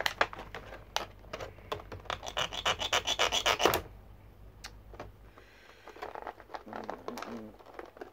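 Clear plastic toy packaging being handled and cut with a knife: scattered clicks and crackles, then a rapid rasping run of strokes about two seconds in that lasts nearly two seconds, followed by lighter handling noise.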